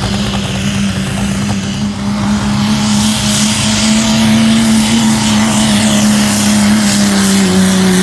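Dodge diesel pickup's engine held at full throttle under load on a truck pull, a steady drone that grows louder about two seconds in.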